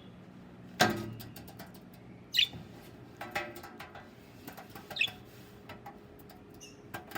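Pet parrots giving short, high squeaky chirps, with one louder call about a second in, and scattered light clicks in between.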